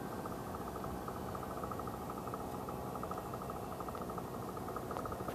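Steady hiss with the faint, distant high whine of an electric RC warbird's motor and propeller in flight, drifting slowly in pitch, over a rapid even pulsing.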